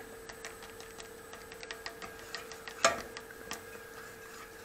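Wire whisk stirring pudding in a stainless steel pot, its wires clicking lightly and irregularly against the pot, with one louder knock about three seconds in.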